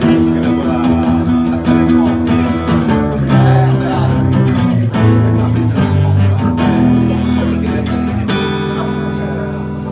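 Band music led by strummed guitar over sustained bass notes, with a regular rhythm.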